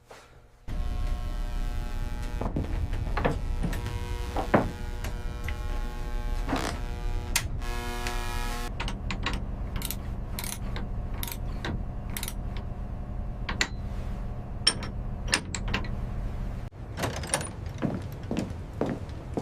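Steady mechanical hum with several fixed tones, starting suddenly under a second in, with scattered clanks and clicks over it; the hum cuts to a different sound about 17 seconds in.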